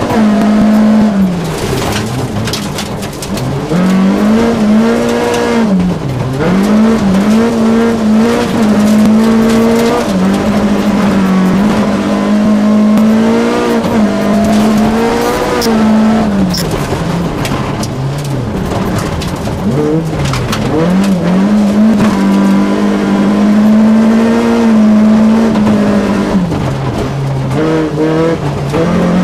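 Rally car heard from inside the cabin at full attack on a gravel stage. The engine is held high in its revs, dropping briefly at gearshifts and lifts many times and climbing again, with gravel and stones clicking and rattling against the car.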